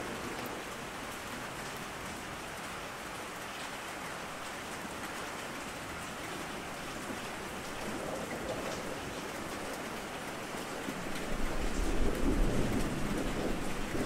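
Steady heavy rain falling, with a low rumble of thunder swelling about three-quarters of the way through.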